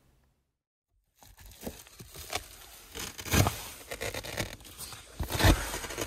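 About a second of silence, then rustling and crinkling with scattered knocks and bumps: someone moving about and handling things inside a car.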